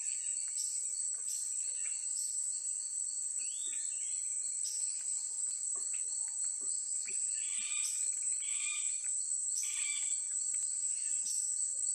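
Forest ambience: a steady, high-pitched insect drone, with short bird calls and chirps coming and going over it.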